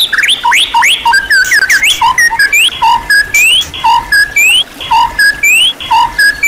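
White-rumped shama (murai batu) singing a loud, whistled song. After a quick run of varied notes, it settles into a short phrase repeated about once a second: a low note, a middle note and a rising whistle.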